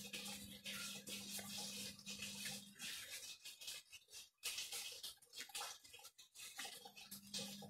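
Paper and card stock rustling and sliding in uneven strokes as cards are handled and pushed into paper pockets, over a faint low steady hum that stops about three seconds in and returns near the end.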